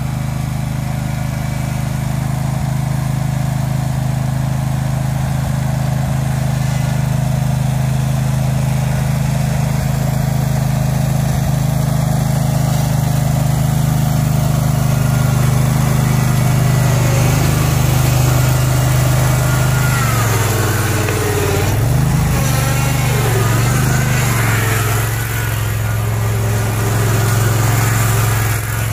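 Small gasoline engine of a homemade rubber-tracked vehicle running steadily while the vehicle drives; about twenty seconds in, the engine speed dips and recovers several times.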